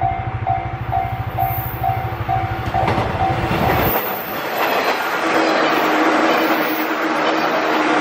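Level-crossing warning bell ringing about twice a second. About four seconds in, a JR 185-series Odoriko limited express electric train passes close by, and the rushing noise and clickety-clack of its wheels take over.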